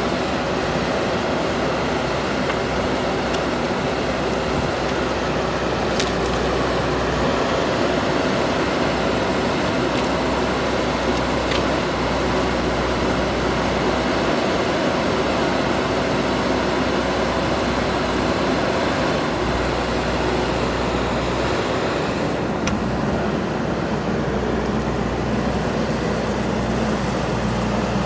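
JCB 3DX Super backhoe loader's diesel engine running steadily under load as the machine works its backhoe arm and moves, with a few light clicks.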